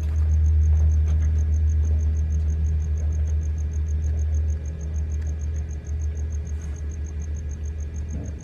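TIG welding machine running while welding thin sheet metal: a steady low hum that eases off a little about halfway through.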